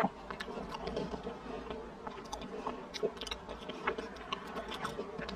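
Close-miked chewing of soft taro paste and mochi, heard as many short, irregular wet mouth clicks.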